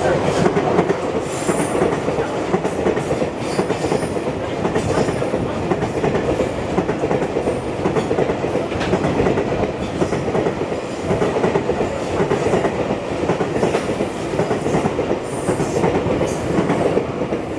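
Super Rail Cargo electric freight train (JR Freight M250 series) running past, a steady rumble of wheels on rail with many brief high-pitched wheel squeals.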